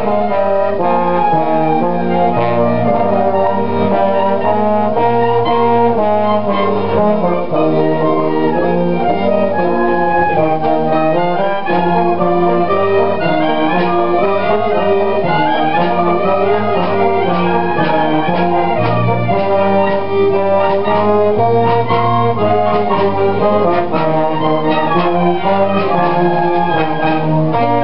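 Wind band playing: clarinets, flutes, saxophones and brass in full chords that change step by step, at a steady, loud level.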